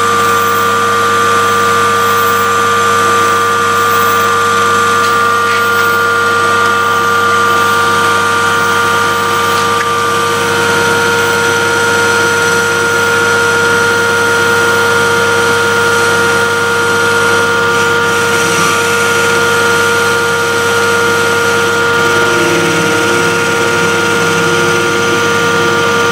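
Homemade CNC lathe running and turning a Morse taper on a metal bar under flood coolant: a steady machine whine of several held tones over a hiss of coolant and cutting. One of the higher tones drops out about ten seconds in.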